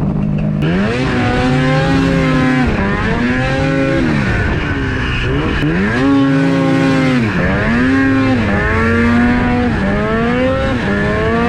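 Snowmobile engine accelerating under throttle, its pitch rising and falling about five times as the rider opens it and eases off while riding.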